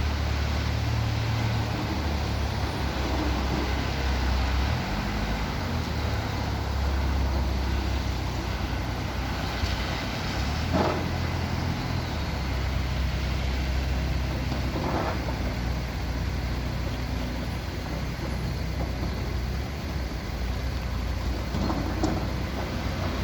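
Steady low engine rumble of heavy road vehicles, with a couple of brief higher-pitched sounds around the middle.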